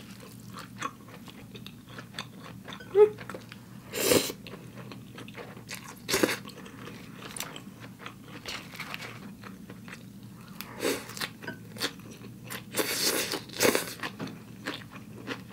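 Chewing and crunching on mouthfuls of a rice-vermicelli bowl with fresh lettuce and raw vegetables, with a few louder crisp crunches at irregular intervals.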